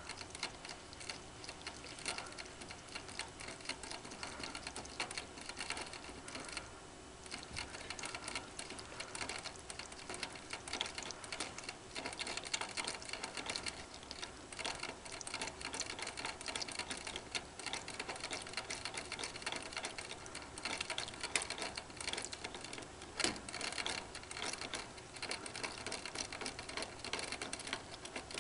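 A ferret lapping at the metal spout of a cage water bottle, the spout clicking in a fast, uneven run of ticks, with a short lull about seven seconds in.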